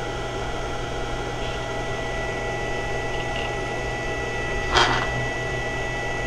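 Steady electrical hum with a thin high whine from a powered pulsing SCR circuit and its small cooling fan running. A short clatter about five seconds in as equipment is set down on the bench.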